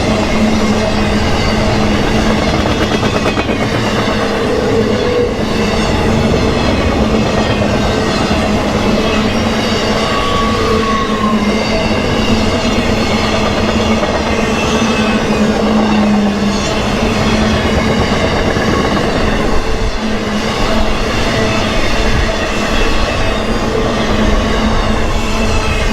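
Freight train passing at speed: a steady, unbroken noise of the cars rolling on the rails.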